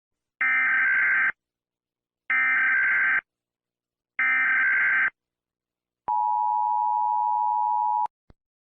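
Emergency Alert System alarm: three short bursts of SAME header data tones, each just under a second and evenly spaced, then the two-tone attention signal held steady for about two seconds before cutting off, followed by a brief click.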